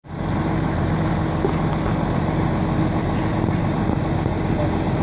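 A gasoline-fed car fire burning steadily at the rear of a sedan, a continuous low rumble with a steady low hum under it.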